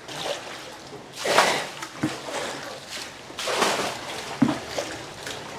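Floodwater being bailed by bucket: water scooped from an ankle-deep flooded floor and poured out over a doorstep, splashing and sloshing, with two louder pours about a second in and about three and a half seconds in.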